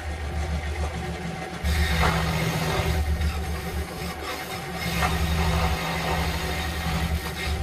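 Woodster SD16 scroll saw running, its reciprocating blade cutting through a thin wooden board, with a low motor hum that swells about two seconds in and again past five seconds.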